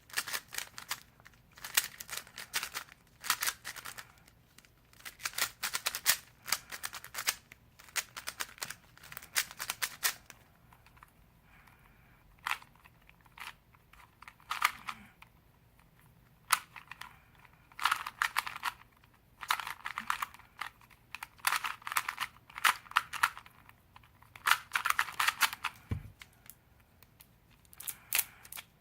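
Plastic twisty puzzles such as a Rubik's Cube being turned fast by hand during a solve: rapid runs of clattering layer clicks in bursts of a second or two, broken by short pauses.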